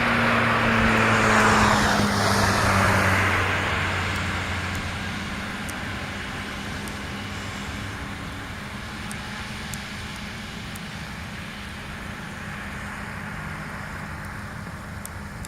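A vehicle passes close by, loudest about a second and a half in, its engine hum and tyre noise dropping in pitch and fading away within a few seconds, leaving steady distant road noise.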